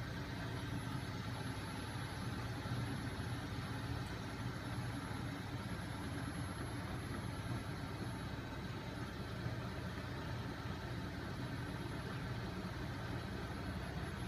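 Homemade magnet-driven crankshaft and flywheel machine running, powered by a small 12 V electric motor: a steady low mechanical whir from the spinning flywheel and rollers.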